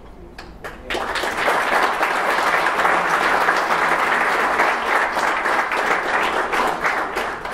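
Audience applauding at the end of a speech. A few scattered claps come first, full applause builds from about a second in, and it dies away near the end.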